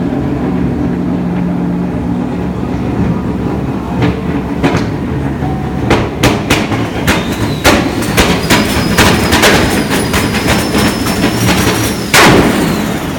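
Highly tuned 1200 hp Toyota Supra engine running with a steady low rumble. From about four seconds in it breaks into a rapid string of loud exhaust pops and bangs. A thin high whistle climbs slowly underneath, and a single big blast comes near the end.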